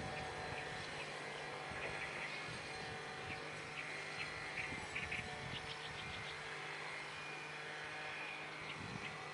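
Steady low hum of a distant vehicle under an even background hiss, with short high chirps coming in small clusters through the middle and end.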